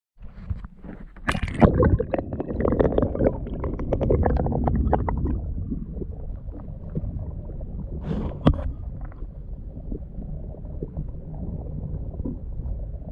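Water against a camera held under the surface beside a gliding canoe: a splash as it goes in, then muffled gurgling and a low steady rumble through the submerged microphone, with one sharp knock about eight and a half seconds in.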